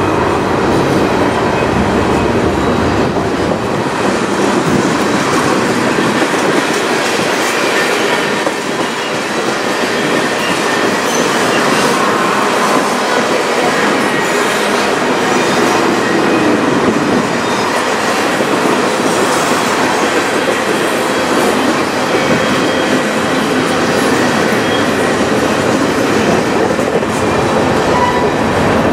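Freight train tank cars and covered hoppers rolling past close by: steady steel-wheel rumble and clatter over the rail joints, with now and then a brief faint wheel squeal.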